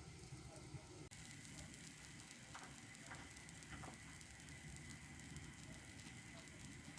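Faint sizzling with fine crackling, from pancake batter frying in a hot pan.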